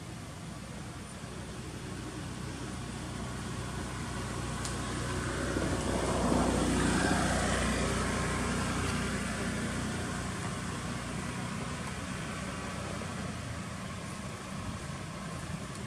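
A motor vehicle passing by: engine and road noise build about four seconds in, peak around six to eight seconds, then fade away over a steady background hum.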